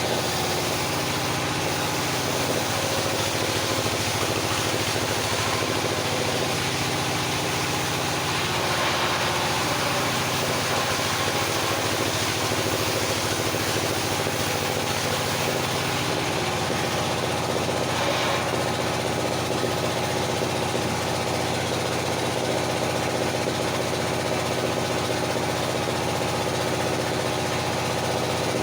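Engine driving a circular sawmill, running steadily at an even speed.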